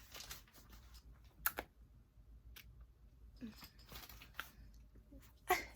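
Faint scattered clicks and rustles of handling, with one sharper click about a second and a half in; a voice starts right at the end.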